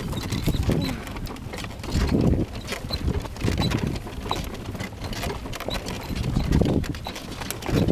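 Horse-drawn cart on a dirt road: the horse's hooves clip-clop at a steady pace amid many rattling clicks from the moving cart, with several low rumbling swells.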